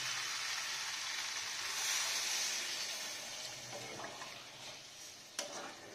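Water poured into a hot kadai of fried mutton keema, peas and potatoes, hissing and sizzling as it hits the pan, swelling about two seconds in and then slowly dying down. A sharp click near the end.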